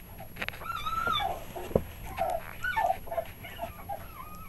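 Three-week-old puppies whining and squealing as they wrestle in a pile: a long wavering whine about a second in, then a string of short yelps, and another whine near the end. A single sharp tap about two seconds in.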